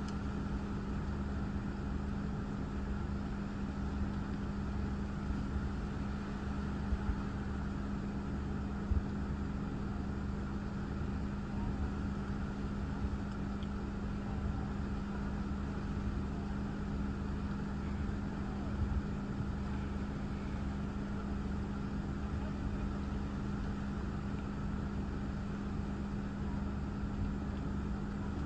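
Steady low hum of a car idling, heard from inside its cabin, with a low rumble beneath that wavers.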